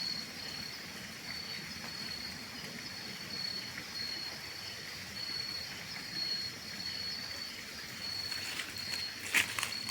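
Insects keep up a steady, high-pitched trill with short breaks, over a faint outdoor hiss. A few sharp clicks come near the end.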